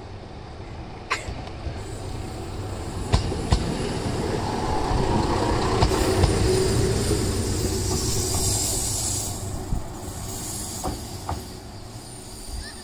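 Mizushima Rinkai Railway diesel railcar arriving and passing close by. It grows louder to a peak about halfway through, with sharp wheel clicks over rail joints and a high hiss as it goes by, then fades as it runs on into the station.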